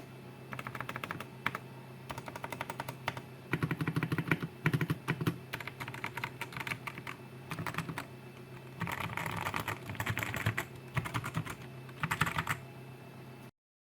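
Typing on a modded Digital Alliance Meca 8s mechanical keyboard with Outemu switches: runs of quick key clicks and clacks in bursts with short pauses. The sound cuts off abruptly near the end.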